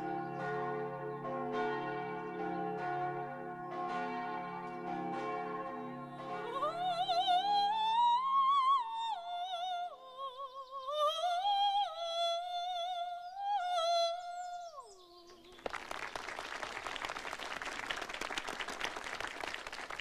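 Church bells ringing with evenly spaced strokes, then a soprano sings a florid operatic phrase with wide vibrato, closing on a falling low note. Applause follows for the last few seconds.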